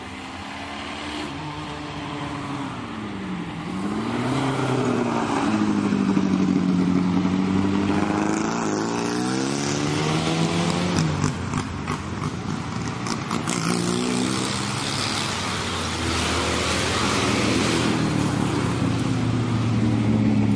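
Hillclimb race car engine accelerating hard, its pitch rising and falling again and again through gear changes, with sharp crackles in the middle. It grows louder over the first few seconds as the car comes closer.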